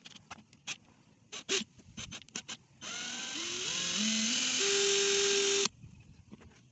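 Cordless rotary hammer drill's motor run by its trigger for about three seconds, the whine stepping up in pitch as it speeds up, then holding and stopping abruptly when released. A few light handling clicks come before it.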